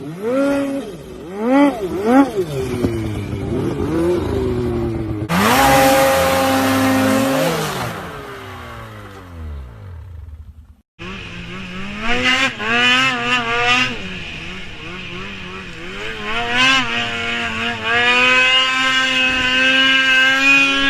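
Snowmobile engines revving up and down. A loud rushing hiss runs for about two seconds near the middle. After a brief dropout, another sled revs hard, climbing to a high steady pitch near the end.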